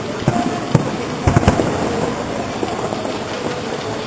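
Fireworks exploding overhead: a few sharp bangs, then a quick cluster of them about a second and a half in, over steady background noise.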